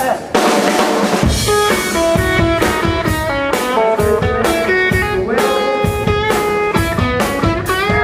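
Rock band playing a song: drum kit with bass drum and snare keeping a steady beat under electric guitar and held pitched notes. A cymbal wash opens, and the full band comes in about a second in.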